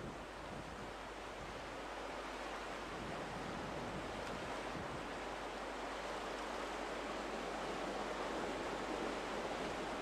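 Steady rush of sea surf mixed with wind, an even hiss with no distinct breaks or impacts.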